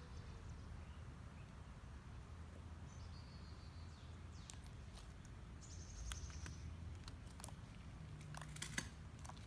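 Faint scattered clicks and crackles of foam slime packed with foam beads being squeezed and kneaded, more of them in the second half, over a low steady hum.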